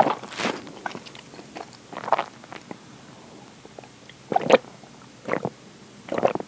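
Mouth sounds of someone eating and drinking: a few chewing noises, then gulps of a drink swallowed from a can, about one a second near the end.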